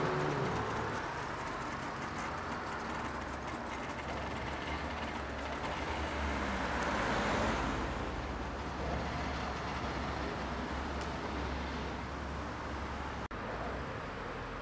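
Classic Auto Union 1000 saloon driving past with its three-cylinder two-stroke engine running. The engine and tyre noise swells as it passes about seven seconds in, then falls away; a brief break in the sound near the end.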